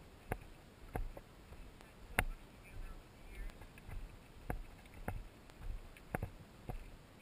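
Footsteps on a rocky, gravelly dirt trail: a steady walking rhythm of crunching steps, about two a second, with one sharper knock about two seconds in.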